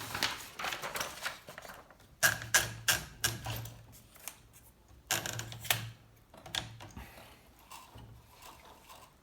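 Olivetti Valentine portable typewriter's mechanism being worked by hand: several short runs of sharp mechanical clicks and knocks, fainter near the end.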